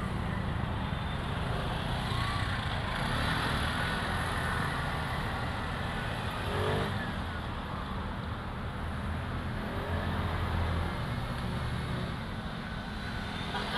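Road traffic: cars and motorcycles running past in a steady rumble.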